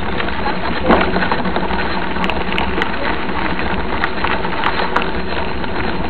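Mountain bike rolling along a gravel road: a steady crunching and crackling of the tyres on gravel, with small clicks and rattles and one louder knock about a second in.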